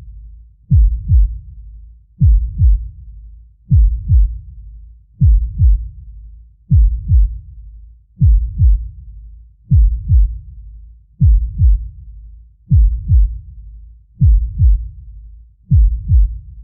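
Deep, slow heartbeat sound effect: paired low thumps (lub-dub) repeating about every second and a half, with a low rumble continuing between the beats.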